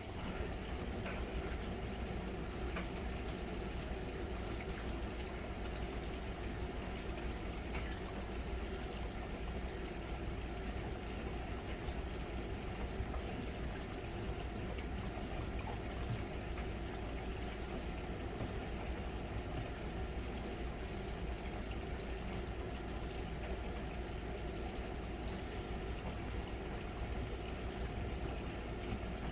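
Miele Novotronic W921 front-loading washing machine running mid-cycle: a steady sound of water moving in the machine over a low, constant hum.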